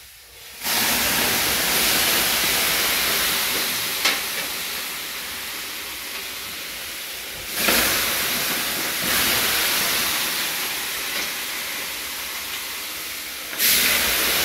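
Water ladled onto the hot stones of a Dubrava Grill'd sauna stove, flashing into steam with a loud hiss. There are three pours: about half a second in, near the middle and near the end. Each starts suddenly and slowly fades.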